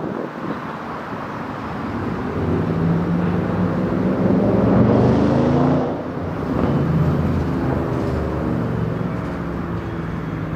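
A train's engine working under power, its note climbing, dropping back about six seconds in, then climbing again.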